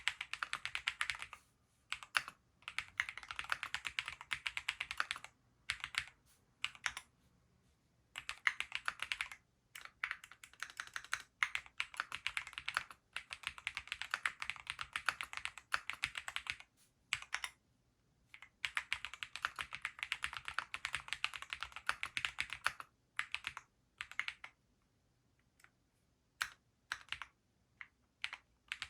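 Graystudio Space65 III custom mechanical keyboard with Gateron Pure Berry linear switches, typed on quickly in long runs of keystrokes broken by a few short pauses.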